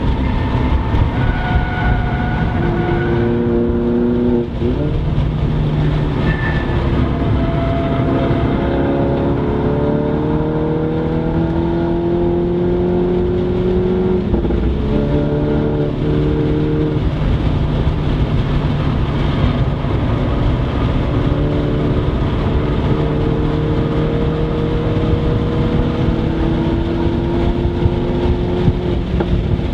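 MINI's engine heard from inside the cabin at track pace, its note rising under hard acceleration and dropping sharply at each gear change, over steady road and wind noise.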